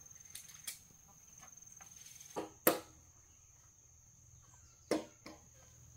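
A steady high-pitched insect trill, like crickets, with three pairs of sharp knocks at uneven intervals, the loudest pair near the middle.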